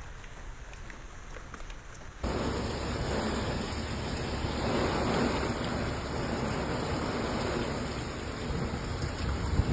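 Heavy rain pouring down as a steady hiss, starting abruptly about two seconds in. Before that there is a quieter hiss with faint ticks.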